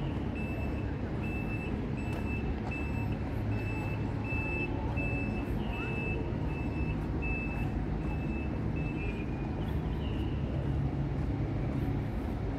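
A high electronic beep repeating two or three times a second, stopping about nine seconds in, over a steady low rumble of outdoor ambience.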